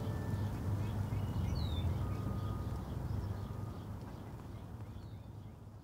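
Faint outdoor ambience with a steady low rumble and a few short bird chirps, two of them about a second and a half in and near the end, fading out gradually.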